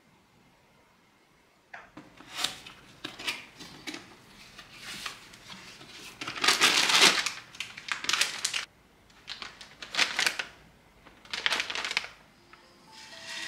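Packaging being handled: a cardboard box of rice noodles opened and its plastic-wrapped noodle packets taken out and set down, a run of rustling, crinkling and scraping that starts about two seconds in and is loudest around the middle. Soft music comes in near the end.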